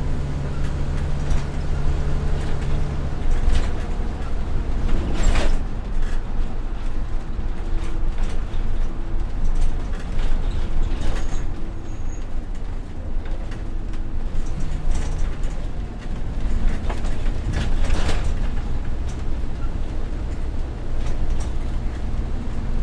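Interior of a local bus under way: the engine hums low and steady under road noise. Knocks and rattles come through now and then, two of them more sharply, about a fifth of the way in and again near the end. A couple of brief, high, thin tones sound near the middle.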